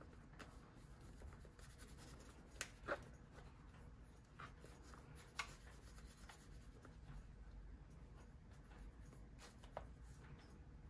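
Faint rubbing and a few light clicks and taps of hands spreading watercolour and water over a paper journal page; the clearest two clicks come close together about two and a half seconds in, another about five seconds in.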